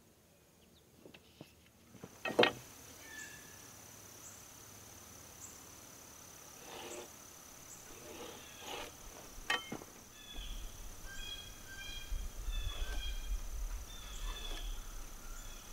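A steady high insect trill with a small regular chirp about once a second, under a few sharp taps and clicks from hand tools handled on a wooden beam while it is marked out with a metal square and pencil; the loudest tap comes about two seconds in. Short repeated chirps join in over the last five seconds.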